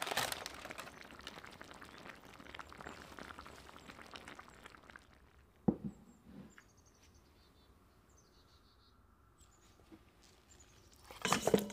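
Aluminium foil crinkling as it is peeled back from a baking dish, loudest at first and fading out after about five seconds. A single sharp knock follows, then faint high chirps. Near the end comes a loud clatter as raw mutton pieces on the bone are dropped into a stainless steel mixing bowl, which rings briefly.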